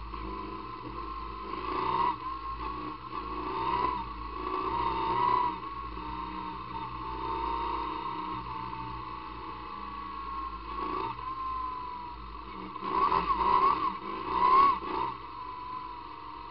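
Sidecar motorcycle's engine running while riding, its pitch rising and falling as the throttle opens and closes, with louder surges about two, four and five seconds in and again near the end.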